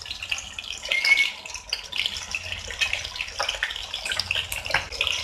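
Chicken drumsticks deep-frying in hot oil in a steel kadai: a steady crackling sizzle of bubbling oil, with a few light scrapes and clinks of a metal fork turning the pieces against the pan.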